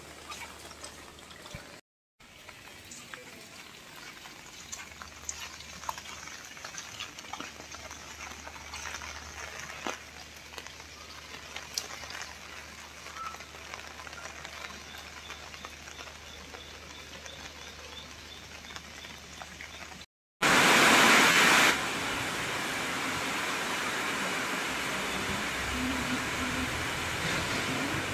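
Rain falling, with scattered drops tapping sharply. After a short break about 20 seconds in, a loud rush lasts about a second, and then a louder, steady hiss of rain follows.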